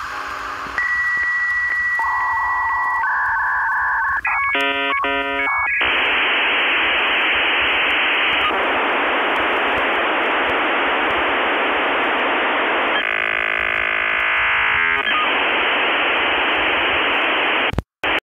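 Dial-up modem handshake over a phone line: a steady high tone and warbling beeps, then a long steady hiss of data noise, cutting off abruptly near the end.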